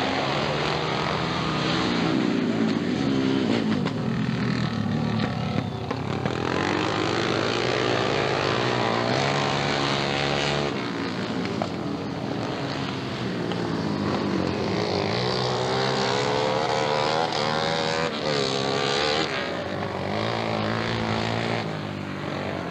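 Racing motorcycle engines revving hard, their pitch climbing repeatedly and dropping back as the riders accelerate and shift gears.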